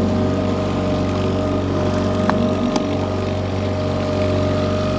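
Small outboard motor idling steadily on the boat, a low, even drone. Two faint clicks come a little over halfway through.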